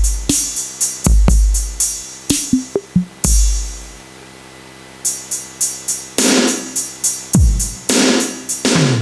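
Carlsbro OKTO A electronic percussion pad played by hand: kick drum and snare hits, a brief lull about four seconds in, then a quick run of hi-hat-like ticks, crash-like hits and electronic tom hits whose pitch falls.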